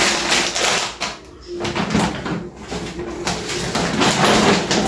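Plastic shopping bag and product packaging rustling and crinkling in several bursts as grocery items are handled and lifted out.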